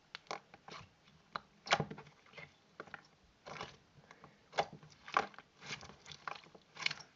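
Stiff, partly dried-out slime being squeezed and worked by hand, giving irregular sharp pops and clicks, a few a second.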